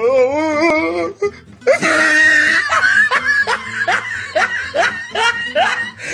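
Loud laughter sound effect: a wavering laugh, a short break, then a long run of hearty 'ha-ha' bursts, each sliding down in pitch, a few a second, that cut off abruptly at the end.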